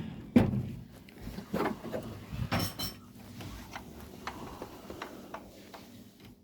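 Scattered knocks and clinks of household objects being handled, several of them a few seconds apart. The loudest knock comes just under half a second in, and a brief ringing clink follows a little after halfway.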